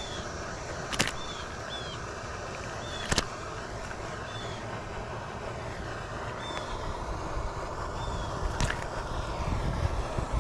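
Steady outdoor night noise with a low rumble that grows near the end, a short high chirp repeating about once a second, and three sharp clicks.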